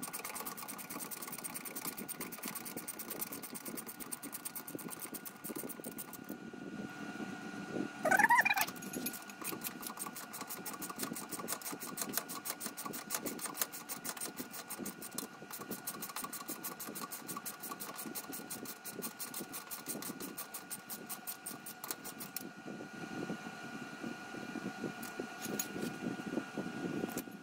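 Ratchet wrench clicking rapidly and steadily as a bolt is backed out of the rear axle bracket, with a brief rising squeal about eight seconds in. The clicking thins out near the end.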